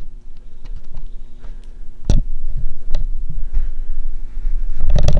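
Handling noise: low rumbling knocks with two sharp clicks, about two and three seconds in, over a faint steady hum, growing louder near the end.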